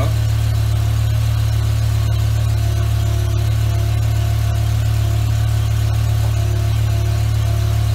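BMW E63 M6's S85 V10 engine idling steadily, with its exhaust valve open.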